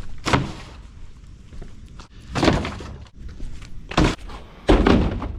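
Pieces of torn-out drywall (sheetrock) being dropped onto a stack of debris: four heavy thuds, the last one near the end the longest.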